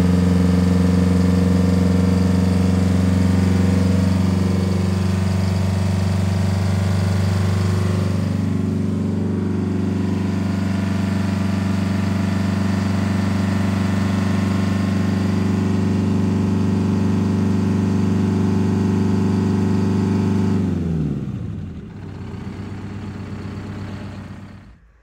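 Bus diesel engine idling steadily, then shut off about 21 seconds in, its pitch falling as it runs down to a stop.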